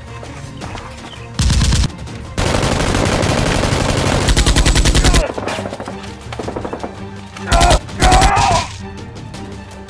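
Rapid-fire gunfire sound effects in bursts: a short burst about one and a half seconds in, a long burst of about three seconds, then two short bursts near the end, over background music.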